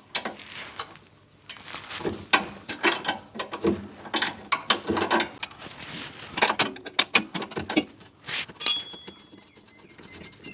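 Ratchet wrench clicking in uneven runs while undoing the 14mm nuts of a rear sway bar bush bracket. Near the end comes a single sharp metallic clink with a brief ring.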